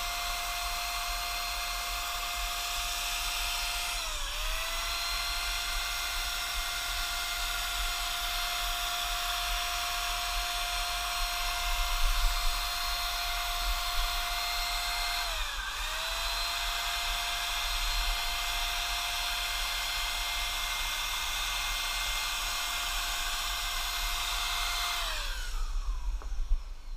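Topvork electric paint spray gun's motor running with a steady high-pitched whine while spraying paint. Its pitch dips and recovers twice, then it winds down and stops near the end.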